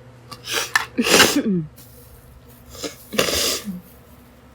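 A girl sneezing twice, each sneeze a quick intake of breath followed by a sudden loud burst; the first is the louder and trails off with a falling voiced tail.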